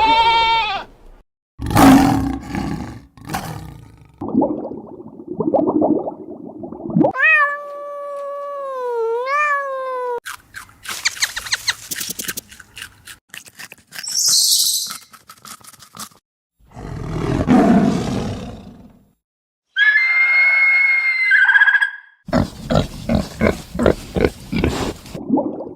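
A series of different animal calls played one after another, each lasting one to three seconds, with short gaps between some of them.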